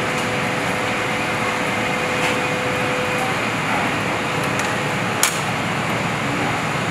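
Steady rushing noise of a commercial kitchen's ventilation, with a faint hum that stops about three seconds in. A single sharp click comes about five seconds in.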